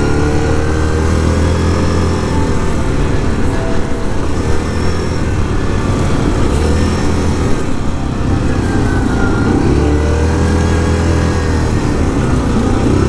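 Yamaha Grizzly 700 quad's single-cylinder engine running under way, its revs rising and falling repeatedly as the throttle is opened and eased off, over a steady noise of riding.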